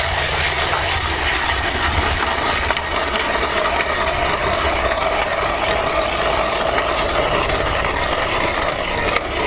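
Nils 6-inch hand ice auger cranked through about two feet of ice, its one-piece blade steadily shaving and grinding the ice.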